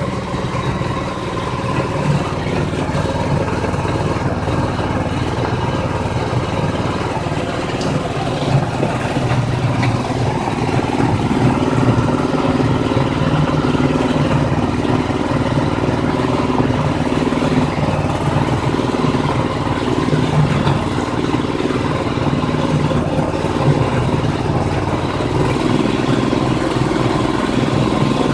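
Livestock-feed blender machine running steadily under power, with a constant engine-like hum.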